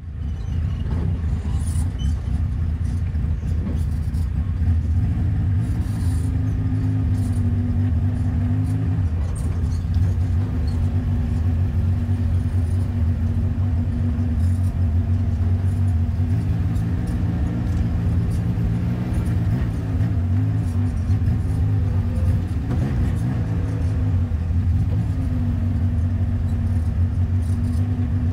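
Truck engine running at low speed while the truck reverses: a steady low drone, its pitch rising and falling slightly.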